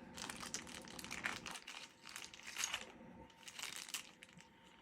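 Packaging crinkling as it is handled and unwrapped, in several crackly bursts that fade near the end.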